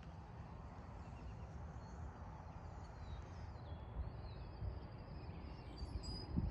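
Quiet outdoor ambience: a low, uneven rumble under a faint hiss, with a few faint bird chirps around the middle.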